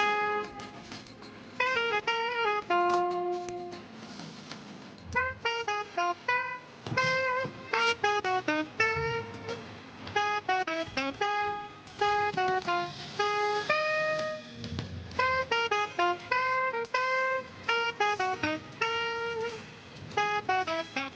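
Background music: an instrumental melody of short notes stepping quickly up and down.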